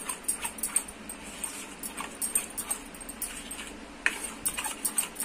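Metal spoon stirring thin rice batter in a steel bowl, scraping and clinking against the bowl in a rapid string of short strokes with brief squeaks.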